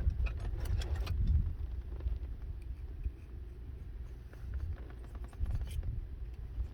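Light clicks and clinks of small parts and tools being handled, a cluster in the first second and a few more later, over a steady low rumble.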